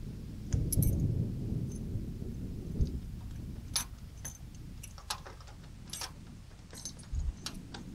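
Sharp clicks and clinks from a bull ring truck tie-down, a metal D-ring on a plastic base plate, being handled as it is lifted out of a pickup's stake pocket and set back in. A low rumble of handling noise fills the first few seconds before the clicks begin.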